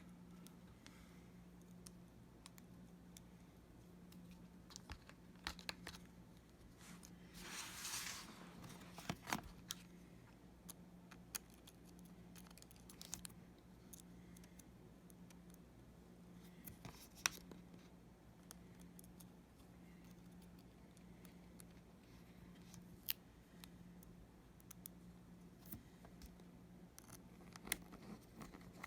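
Faint scattered clicks and taps of a small screwdriver and tiny screws being fitted into a MacBook Pro's new battery, with a brief rustle about eight seconds in, over a low steady hum.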